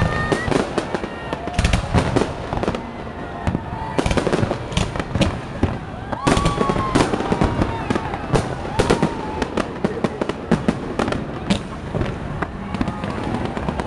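Fireworks display: a dense, irregular run of bangs and crackles from exploding shells and fountains, going on throughout.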